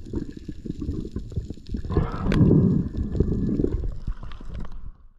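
Muffled underwater rumbling and gurgling of water rushing past a submerged camera, made by a finning freediver's ascent, with many small clicks and knocks. It swells louder about two seconds in, with one sharp click, and cuts off abruptly just before the end.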